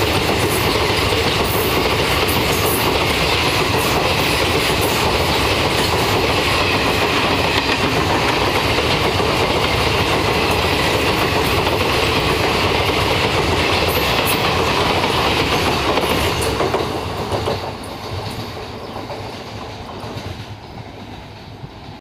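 Train of high-capacity parcel vans passing at speed, its wheels clattering over the rail joints with a steady loud rumble. About 17 seconds in, the last vehicle goes by and the noise falls away as the train moves off.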